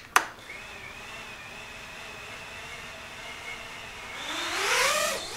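A click, then the high, faint whine of the HX115 small FPV quadcopter's brushless motors spinning at idle. About four seconds in, the whine rises in pitch and gets louder as the motors throttle up for takeoff.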